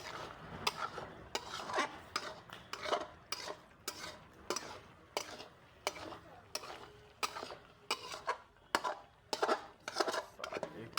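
Metal utensils clinking and scraping against dishes, a string of irregular sharp clicks about two to three times a second.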